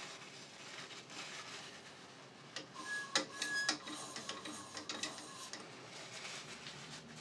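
Hand handling of a stopped wood lathe: soft rubbing and scattered small clicks, with a cluster of sharper metallic clicks and brief clinks about three seconds in as the metal chuck is turned by hand.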